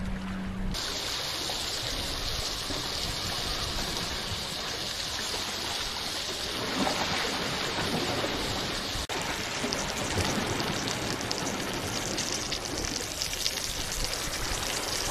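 Butter and oil sizzling in a cast iron skillet: a steady hiss that starts suddenly about a second in, crackling more near the end as a rockfish fries in it.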